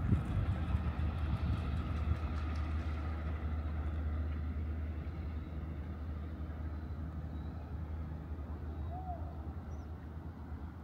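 Road traffic: a vehicle passing and fading away over the first few seconds, over a steady low rumble.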